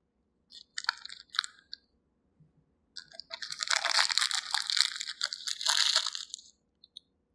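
Crinkling plastic wrapper of a small Oreo cookie pack being handled and opened: a few short crackles about a second in, then a longer stretch of steady crinkling from about three seconds in until shortly before the end.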